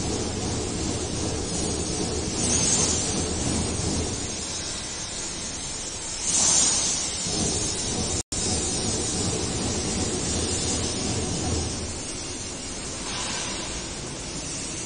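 Steady hall ambience: an even rush of background noise with a low hum and a few swells. It cuts out for an instant about eight seconds in.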